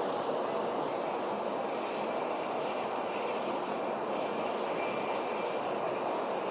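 Steady running noise of a Tokaido Shinkansen train at speed, heard inside the passenger cabin: an even rushing sound with no changes.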